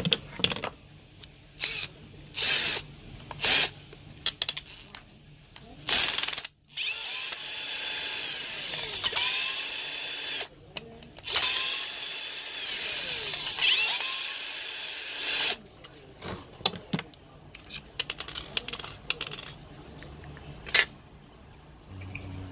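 Electric screwdriver or drill motor running in several short bursts, then in two longer runs of a few seconds each whose whine slides up and down in pitch, then a few more short bursts near the end.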